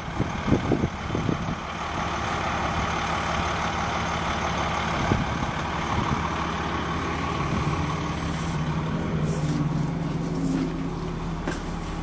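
Diesel engine of a rear-engine school bus idling steadily, with a few knocks in the first second or two.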